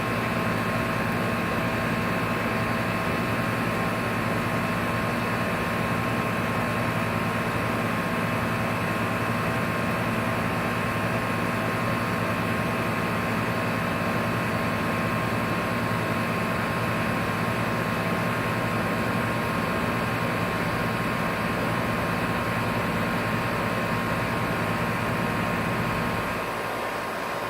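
Outdoor air-conditioning compressor unit running: a steady hum with a constant whine on top. Near the end the low part of the hum drops away and it gets a little quieter.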